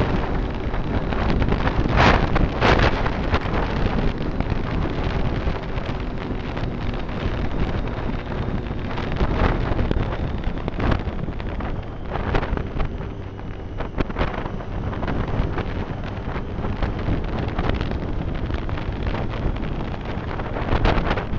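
Wind buffeting the microphone of a moving motorcycle, in irregular gusts, over the Triumph Street Triple's three-cylinder engine running steadily underneath.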